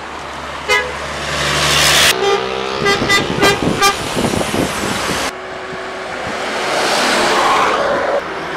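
Passing buses with telolet musical horns: a short horn toot about a second in, then a quick run of changing horn notes from about two to four seconds in, over engine and tyre noise that swells as a bus goes by near the end. The sound cuts abruptly from one pass to the next twice.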